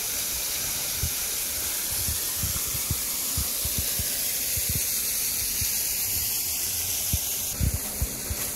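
Waterfall rushing as a steady loud hiss of falling water, with scattered low thumps.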